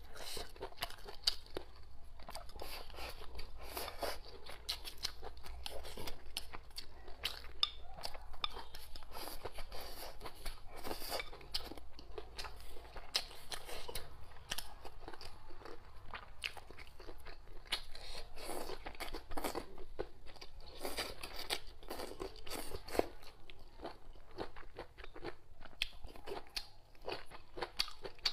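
Close-miked chewing and crunching of mouthfuls of braised chicken offal and rice, with a constant run of sharp mouth clicks and crackles.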